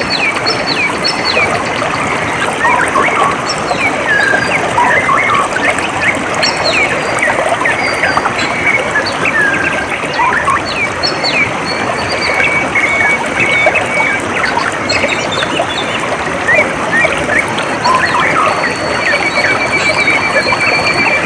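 Steady trickle of flowing water with many small birds chirping over it in short rising and falling calls. A rapid, even trill comes in twice, once around the middle and again near the end.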